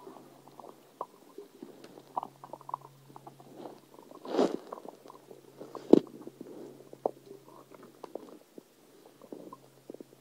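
A person's stomach full of soda gurgling and bubbling: many small pops and trickles, with a longer, louder gurgle about four seconds in and a sharp pop near six seconds.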